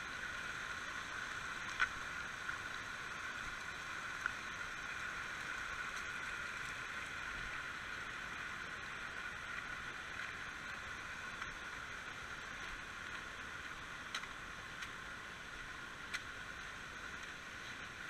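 Small rocky forest stream rushing steadily over stones, easing slightly toward the end, with a few short sharp clicks.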